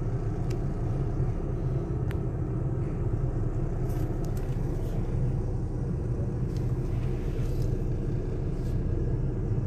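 Steady low rumble of a car heard from inside the cabin: engine and road noise while riding.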